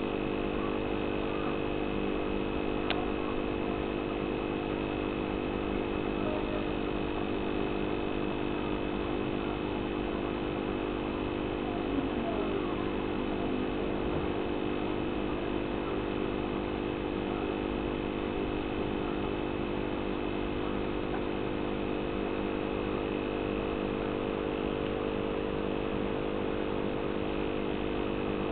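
Steady electric hum of aquarium equipment, a water pump motor running without change, with a faint wash of noise beneath it.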